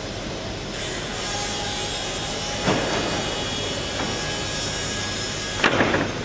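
Plywood sanding machine running steadily. A brighter sanding hiss sets in about a second in and stops abruptly near the end, with a sharp knock midway and a louder clatter just as the hiss stops.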